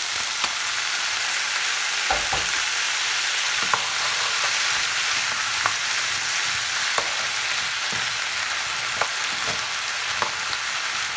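Diced zucchini and onion sizzling steadily in a frying pan as chopped tomato is scraped in off a knife and stirred through with a spoon, with scattered clicks and scrapes of the utensils against the pan.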